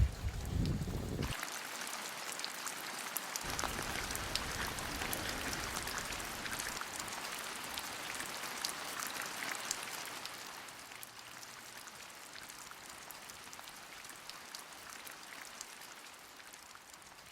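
Rain falling, an even hiss with many individual drops ticking on surfaces, growing softer about ten seconds in.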